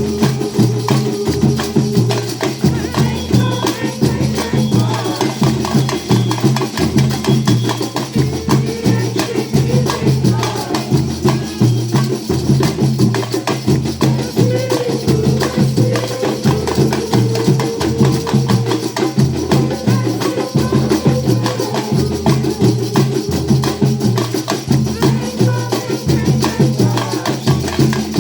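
Music with a steady beat and a repeating bass line.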